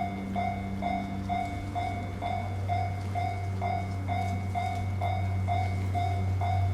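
Japanese level-crossing warning bell ringing at an even pace, about two strikes a second, warning of an approaching train. A steady low hum runs underneath.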